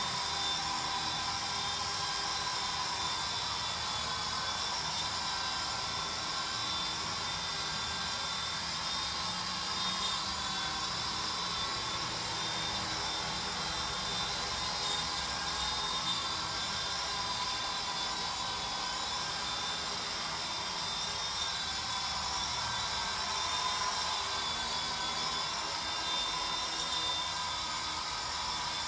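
WLtoys V912 RC helicopter in flight: the electric motors and rotor blades make a steady high whine whose pitch drifts slightly up and down.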